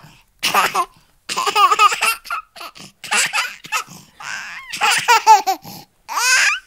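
High-pitched laughter in a string of short bursts with brief pauses between them.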